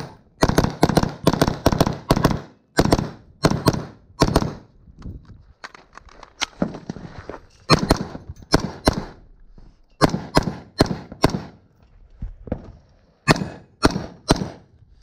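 AR-style semi-automatic rifle fired in quick strings of about two to six shots, with short pauses of one to two seconds between strings, the longest gap about halfway through.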